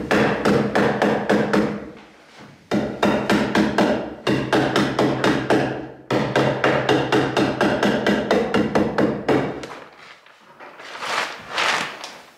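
Staple hammer driving staples into the wooden door framing in quick runs of about four strikes a second, three runs in a row, with the framing ringing under the blows. A brief rustle of the wrap sheet follows near the end.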